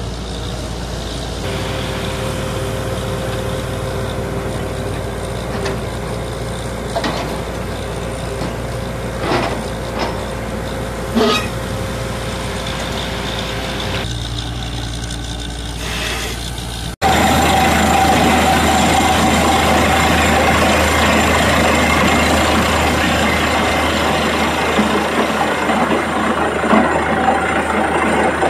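Truck-mounted borewell drilling rig running steadily, with a few sharp metallic knocks partway through. After an abrupt change about two-thirds of the way in, it becomes louder and rougher: the drill working at the borehole close up, with muddy water spraying out around the turning pipe.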